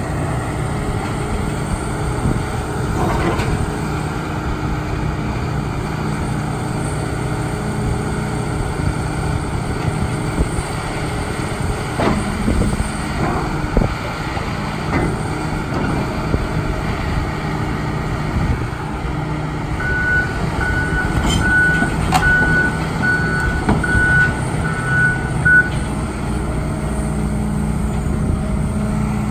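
2012 Hitachi ZX290LC-5 excavator's diesel engine running steadily while the boom, arm and bucket work and the upper structure swings, with a few clunks. Past the middle, an alarm beeps in an even series for about six seconds.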